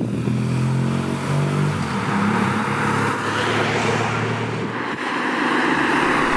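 Honda Transalp 650's V-twin engine running under way, its note steady then shifting about halfway through and fading near the end. Loud wind noise rushes over the microphone throughout.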